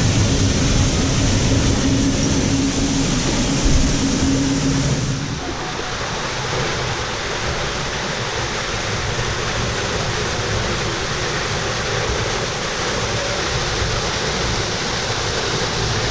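Waterfall water rushing in a steady, even roar of noise. About five seconds in the sound shifts abruptly, losing a low steady hum underneath.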